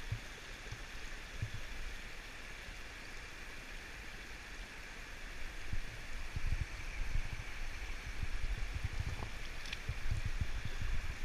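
River water rushing steadily past metal grating, with irregular low thuds on the microphone becoming frequent from about six seconds in.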